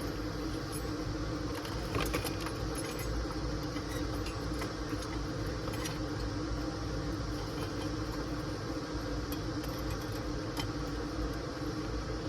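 Scattered light metal clicks and clinks of nuts, washers and a riser clamp being worked on threaded rod with small channel-lock pliers, over a steady low hum.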